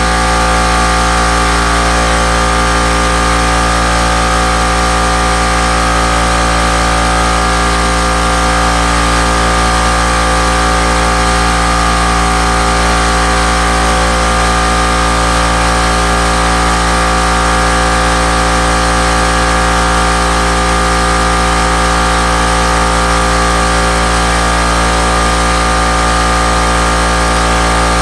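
A machine running steadily with a loud constant hum and hiss, pulsing quickly and evenly, with no change in speed or level.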